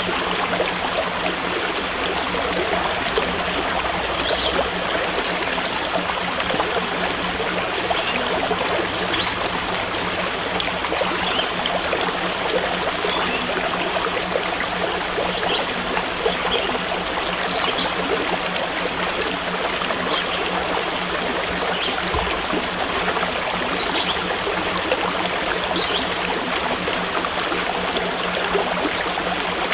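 Water in a small stream flowing steadily over stones, an even rushing and trickling.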